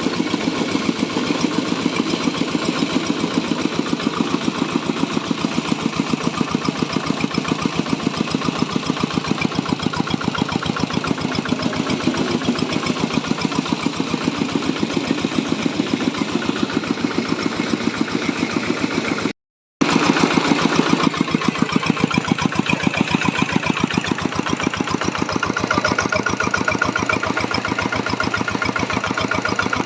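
Diesel engine driving a corn grinding mill, running steadily with a rapid, even beat. The sound cuts out for a split second about two thirds of the way through, then carries on the same.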